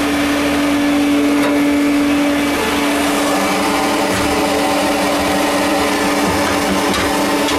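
Vacuum motor running steadily: a constant hum over rushing air, with a slight shift in its note about two and a half seconds in.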